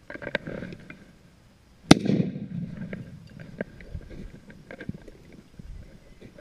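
A single loud gunshot about two seconds in: a sharp crack with a short rumbling tail. Lighter rustling and ticking sounds run around it.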